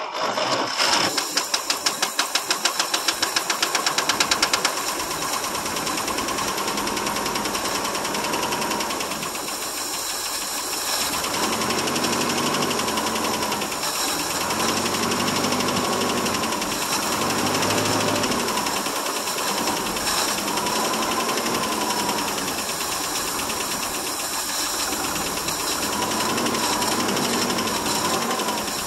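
The 266 V8 of a 1963 International C120 pickup catches on a cold start after years sitting, fed on gas poured down the carburettor. It chugs unevenly for the first few seconds, then keeps running with the revs swelling and falling again and again.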